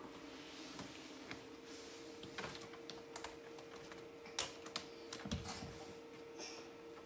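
A cat's claws clicking and scratching on a corrugated-cardboard scratching tower as the cat climbs it: a run of sharp clicks, the loudest about four seconds in, and a soft thump soon after.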